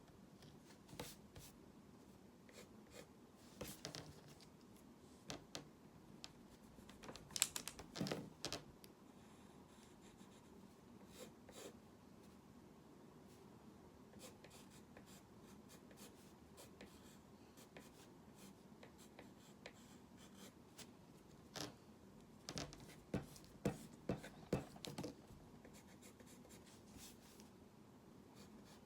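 Faint scratching and light tapping of a drawing tool on a drawing surface as lines are sketched. The strokes are scattered, with denser, louder runs about seven seconds in and again from about twenty-two to twenty-five seconds.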